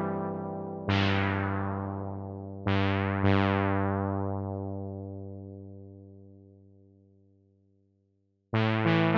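Teenage Engineering OP-1 Field synthesizer playing chords. Three are struck, about a second in, near three seconds and just after, each with a bright attack that fades slowly over several seconds almost to nothing. A quick run of new notes starts near the end.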